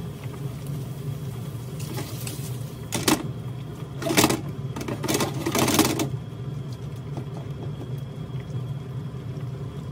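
Chopped tomatoes sizzling in a stainless steel frying pan as a silicone spatula stirs them, with a few louder scraping strokes about three, four and five to six seconds in. A steady low hum runs underneath.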